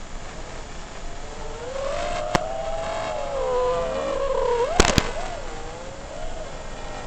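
FPV freestyle quadcopter's motors and propellers whining, the pitch rising and falling with the throttle. A sharp click sounds about two seconds in, and a few more come close together near five seconds.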